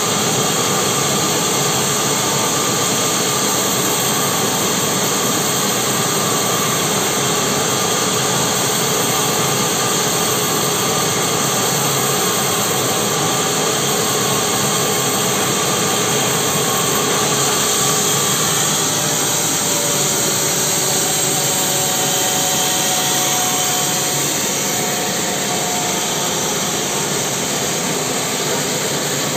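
Sawmill saw running and cutting through a mahogany log: a steady, dense machine noise with a few faint whining tones, getting a little quieter about twenty-four seconds in.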